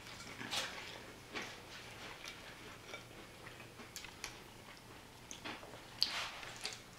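A burger being chewed close to the microphone: scattered soft wet mouth clicks and smacks, with a sharper click and a brief smack about six seconds in.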